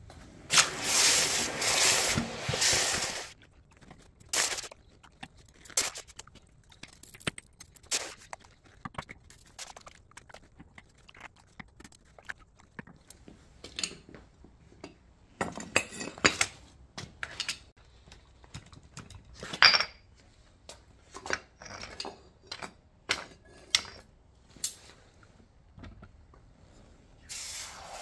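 Hot aluminum ingot plunged into a bucket of water, hissing and sizzling for about three seconds as it quenches. Then a scatter of light metallic clinks and knocks as the ingots and tongs are handled, and near the end another ingot hisses into the water.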